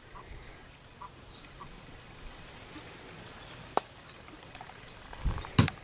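Faint bird chirps, a few short ones in the first half, over a low background hiss, with a sharp click near the middle and a couple of thumps near the end.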